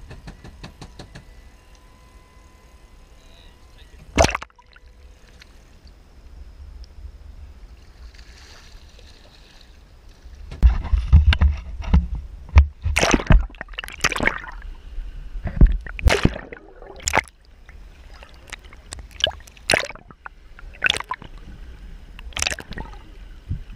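Seawater sloshing and splashing around a camera's housing as it is dipped at the surface and into the water. There is a single sharp knock about four seconds in. From about ten seconds in come repeated loud splashes and knocks with low rumbling.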